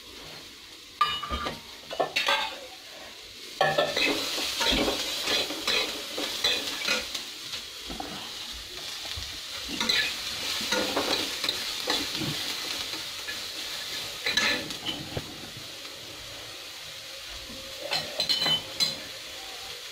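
Chopped onion, dry coconut and garlic sizzling in a kadai while a steel spatula stirs them, scraping and clinking against the pan at irregular moments. They are being roasted only to a light golden for a ground masala paste.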